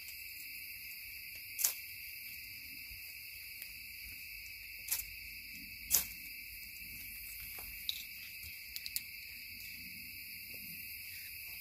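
Crickets trilling steadily, with a handful of short sharp clicks and pops, the loudest about six seconds in, as a bag of shredded magnesium is lit and flares up.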